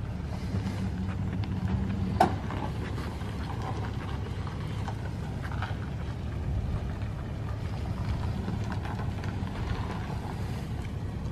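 Pickup truck engine running slowly and steadily as it backs a travel trailer, with a single sharp click about two seconds in.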